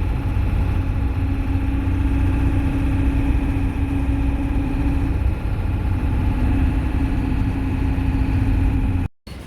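Motor vehicle engine running steadily: a loud low rumble with a held hum above it.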